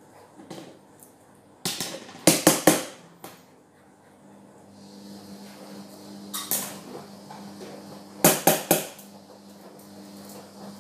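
Plastic dishes and containers clattering as they are handled and set down: a quick run of about four knocks about two seconds in, a single knock midway, and three more about eight seconds in. A steady low hum runs underneath from about four seconds on.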